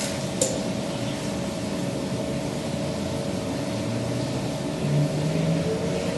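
Paint-booth exhaust and supply-air ventilation fans running: a steady rush of air with a constant hum, and a single sharp click about half a second in.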